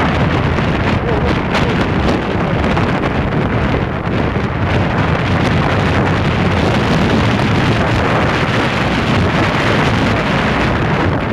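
Wind buffeting the microphone on the deck of a moving cargo barge, mixed with the steady running of its engine and the wash of rough water along the hull.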